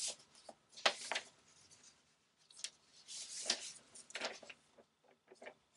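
A few short rustles and light scrapes of something being handled: one about a second in, a longer stretch around three seconds, and another just after four seconds.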